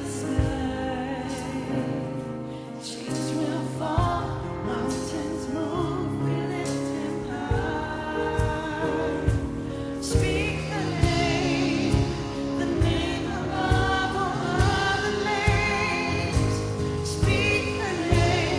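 A live gospel worship song: a band with a steady beat and a choir singing.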